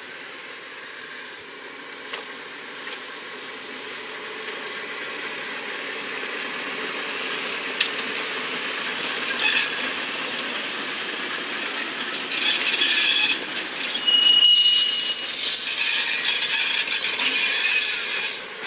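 A train rolling slowly through station trackwork, getting steadily louder, with a couple of knocks from the wheels on the rail joints. In the second half come high, steady squeals of steel wheels against the rails, the loudest part.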